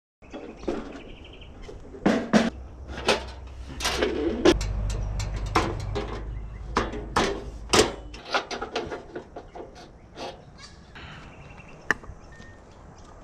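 Clatter of breakfast being prepared: a run of sharp clicks and knocks from utensils and cooking gear, coming several a second at times, with a low hum for a few seconds in the middle.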